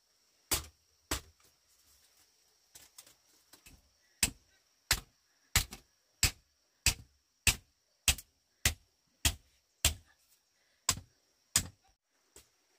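Sharp, evenly spaced blows struck in a steady working rhythm, about three every two seconds, over a faint steady high hiss. A few softer knocks come about three seconds in, and the blows grow loud from about four seconds in.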